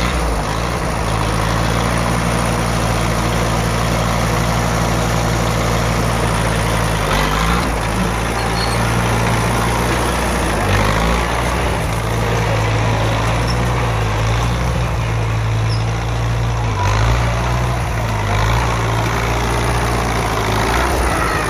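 1949 Case farm tractor's engine running steadily under way, its engine speed shifting a few times.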